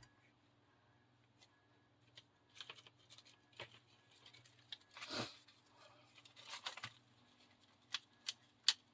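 Faint paper rustling and scattered small clicks of eyelets and a setting tool being handled, with a louder rustle about five seconds in and a few sharp clicks near the end.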